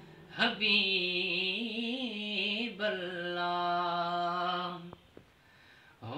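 Man singing a Sindhi naat unaccompanied: long held notes with the pitch wavering and ornamented, in two phrases with a short break between them. The voice stops about five seconds in, and it is near silent to the end.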